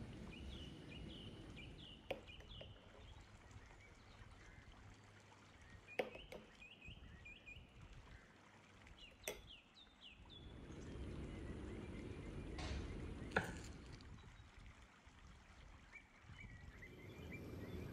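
Faint handling sounds of a plastic spoon working whipped cream from a glass bowl into a glass dish: a few sharp taps and clicks, the strongest a little past the middle, over soft noise. Faint high chirping comes and goes in the background.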